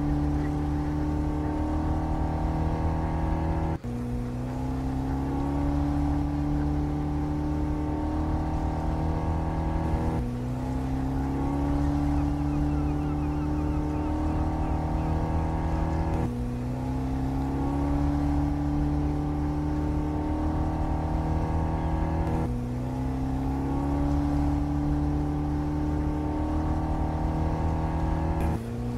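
Pilot boat's engines running at speed: a steady, loud drone with one tone that climbs a little in pitch and drops back about every six seconds.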